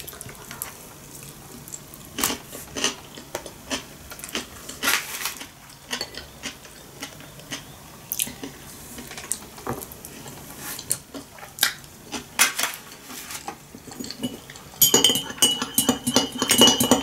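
Wooden chopsticks clicking and tapping now and then against a plastic takeaway tray and a small sauce dish. About two seconds before the end, a spoon stirs briskly in a glass of tea, a quick run of clinks with the glass ringing, stirring something in to dissolve.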